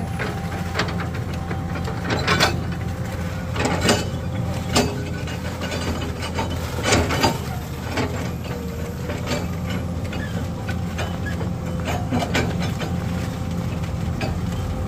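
Heavy vehicle engine running steadily at low revs, with scattered sharp knocks and clatters of work over it.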